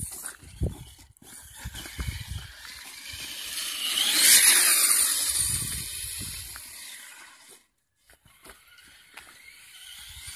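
Traxxas Stampede 2WD RC monster truck driving on wet pavement: the electric motor's whine and the tyres' hiss swell as it passes close about four seconds in, then fade. Low wind rumble on the microphone early on. The sound drops out briefly near the end, then quieter driving follows.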